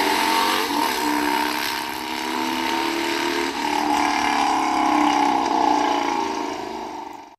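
Motorcycle engine sound effect at high revs: a steady, loud engine drone whose pitch wavers slightly.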